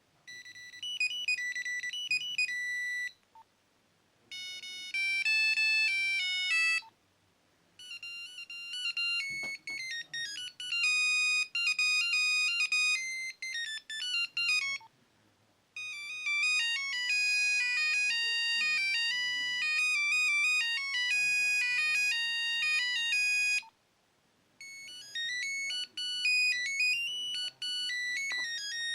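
Nokia 3110 (NHE-8) mobile phone playing its built-in monophonic ringtones through its small speaker, one after another: short beeping single-note melodies separated by pauses of about a second.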